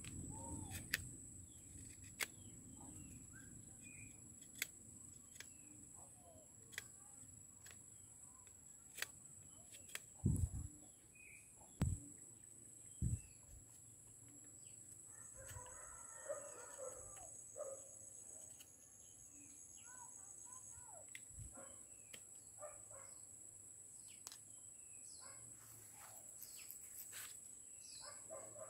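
Faint outdoor background with a steady high whine, scattered sharp clicks, and three louder low knocks. Partway through comes a short burst of chirping bird-like calls.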